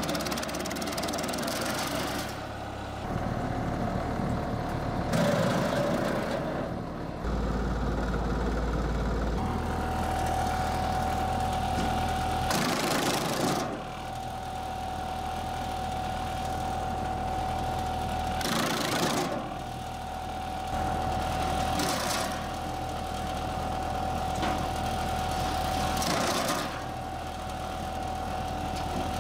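Engine-driven firewood processing machine running steadily with a steady whine, with a short louder rush of noise every four to eight seconds.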